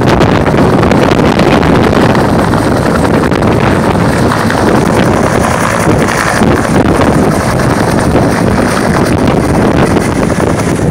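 Helicopters lifting off and flying low close by: loud, steady rotor and engine noise, mixed with wind buffeting the microphone.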